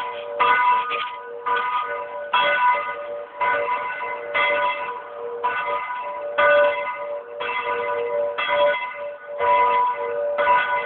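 Church bells ringing, struck about once a second, with several pitches sounding together and each stroke ringing on into the next.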